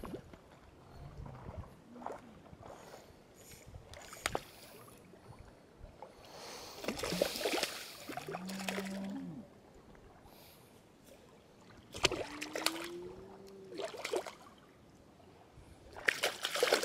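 Water sloshing and splashing in irregular bursts with scattered knocks as a hooked carp is brought in at the water's edge. Two short pitched sounds come in the middle, the second rising slowly.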